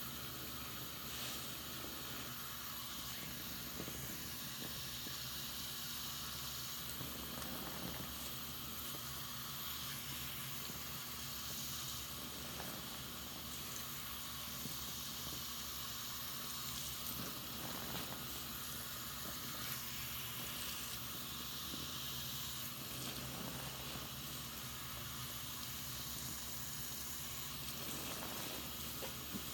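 Soap-soaked sponge squeezed and worked by hand in a sink of suds, giving a steady wet fizzing of foam over a running tap stream.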